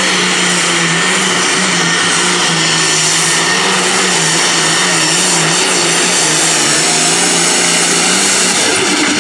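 International Harvester 1066 pulling tractor's turbocharged diesel engine running flat out under load as it drags the weight-transfer sled, with a high whine over the engine note. The engine note drops away near the end.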